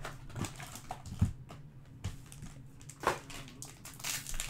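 Hands handling a cardboard trading card box with a few light taps and scrapes, then from about four seconds in the crinkling of a foil trading card pack wrapper.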